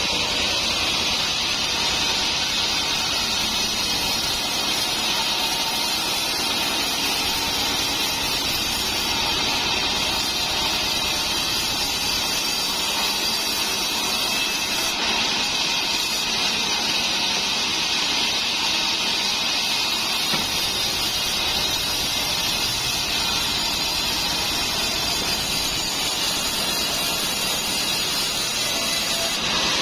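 Large vertical sawmill band saw running while its blade cuts lengthwise through a trembesi (rain tree) beam being sawn into rafters: a steady, unbroken sawing noise.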